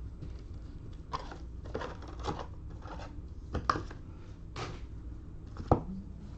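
Trading cards being handled and slid off a stack one by one: a series of short rustles and scrapes, with a sharper snap near the end.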